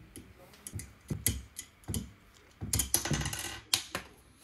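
Small metal screws and T-nuts clicking and tapping as they are handled and set down on a desk, with a quick run of rattling clicks about three seconds in.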